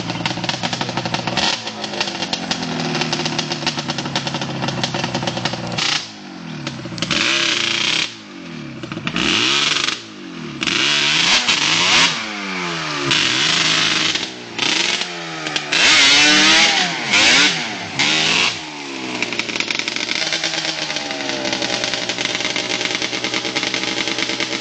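Yamaha Banshee ATV's two-stroke twin engine running under load, then revved hard over and over with its pitch rising and falling as the quad is stuck and its rear wheels spin in mud. Near the end it settles to a steadier run.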